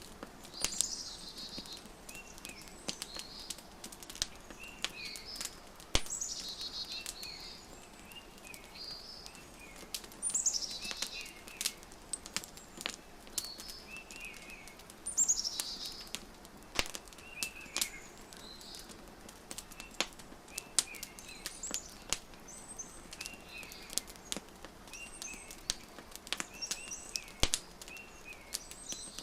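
Wood fire crackling with frequent sharp pops, mixed with songbirds chirping: short repeated calls throughout and several loud descending trills a few seconds apart.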